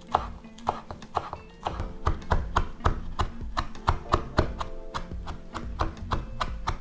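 Kitchen knife finely chopping fresh mint leaves on a bamboo cutting board: quick, even knocks of the blade on the wood, about three to four a second, with background music underneath.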